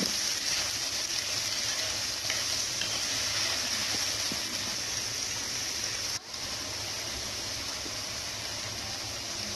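Chopped tomatoes, onions and garlic sizzling steadily in hot oil in a frying pan while being stirred with a spatula. The sound drops out for an instant about six seconds in, then the sizzle carries on.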